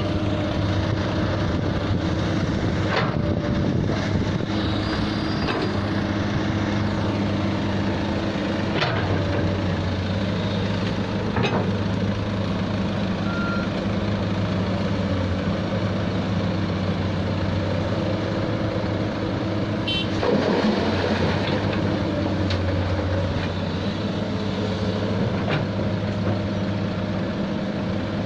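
Heavy excavator's diesel engine running steadily, with a few sharp knocks spread through.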